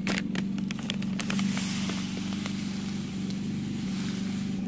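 Steady low motor hum, with scattered light clicks and a soft hiss about halfway through.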